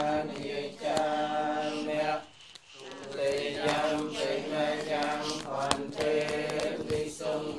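Buddhist Pali chanting: voices intone on a steady, held pitch, with a brief break about two and a half seconds in.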